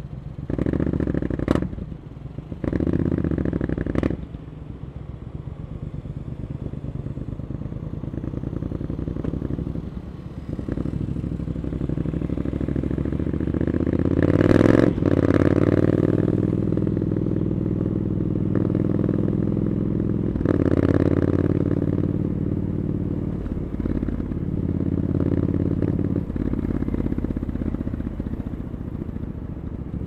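Triumph Scrambler 900's parallel-twin engine through aftermarket Arrow exhaust pipes, blipped twice in quick succession near the start, then pulling away and accelerating through the gears. It is loudest about halfway through and surges again about two-thirds of the way in, running steadily in between.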